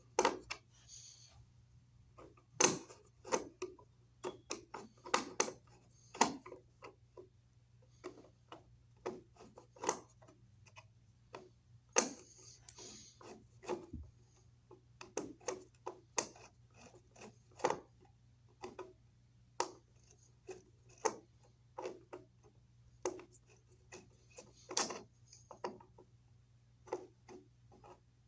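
Irregular clicks, taps and knocks of hand tools and small metal hardware being handled while working on an electrical box and outlet, over a faint steady low hum.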